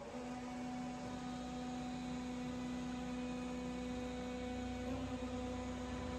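Hydraulic pipe-crushing press's power pack switching on and running: a steady mechanical hum with one clear tone and fainter overtones.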